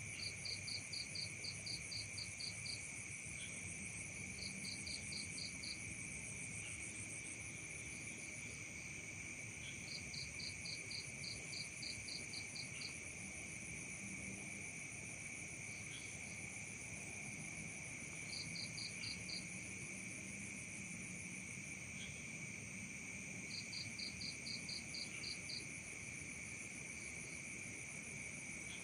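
Night chorus of crickets and other insects: a steady high trilling, with bouts of rapid pulsed chirps, about four a second, breaking in every few seconds for one to three seconds at a time.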